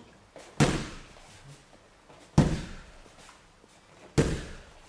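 Straight knee strikes landing on Thai pads: three sharp slaps, about one every 1.8 seconds, each fading with a brief echo.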